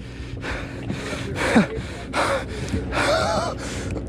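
A man panting and gasping hard in quick, repeated breaths, with a couple of short strained grunts, from the strain of fighting a big fish on rod and reel.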